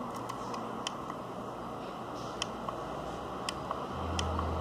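Light, irregularly spaced clicks of the Arctic Dolphin ADT-210 vape mod's buttons being pressed to step through its temperature setting, over a steady hiss. A low hum comes in near the end.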